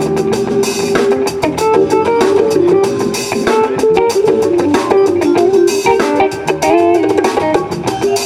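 Live funk band jamming: electric guitar lines over a drum kit with bass guitar, played as a sound check.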